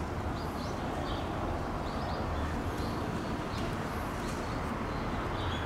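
Small birds chirping in short, high notes every second or so over a steady outdoor background hum.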